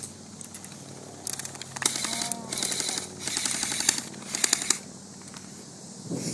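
Airsoft guns firing on full auto: about five short bursts in quick succession, each a fast string of sharp clicks.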